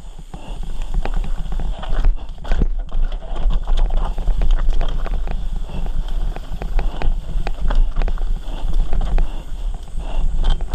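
Mountain bike rattling over a rough, dusty dirt trail at speed: tyres on loose dirt with rapid, irregular knocks and clatter from the bike, over a steady low rumble.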